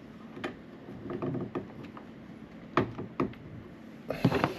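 Clicks and knocks of a small 3D-printed plastic mount being handled and fitted onto a 3D printer's frame: scattered taps, two sharp knocks about three seconds in and a cluster of clicks near the end.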